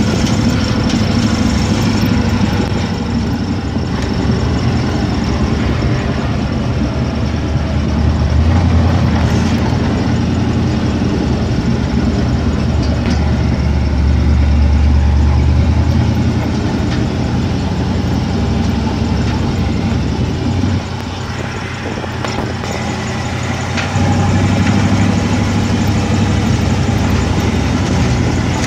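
Engine of a 4x4 running at low speed as it crawls along a rough dirt trail: a steady low drone that swells a little twice in the middle and drops back briefly near the end before picking up again.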